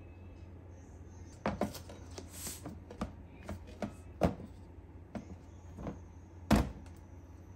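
Plastic lids pressed onto food storage containers and the containers set down and slid on a countertop: a string of separate clicks and knocks, the loudest near the end, over a low steady hum.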